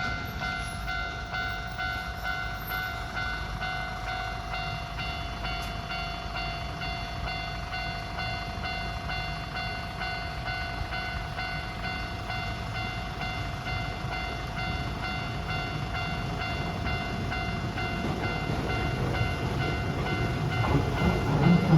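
Railway level-crossing alarm ringing steadily, with the rumble of an approaching train growing louder over the last few seconds.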